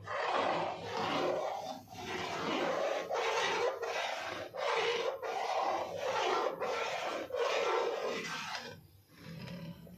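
A metal spatula scraping across the bottom of a metal pan as it stirs thickening firni (rice-flour milk pudding). The scraping strokes come steadily, about one every 0.7 seconds, and stop about nine seconds in. The stirring is kept up without a break so that lumps do not form.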